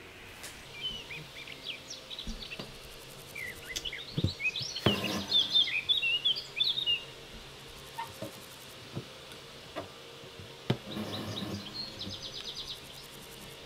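Small birds chirping in the background in quick, short twittering calls, busiest about halfway through. A few soft clicks and, near the end, a brief rustle come from a needle and cotton floss being drawn through linen fabric in an embroidery hoop.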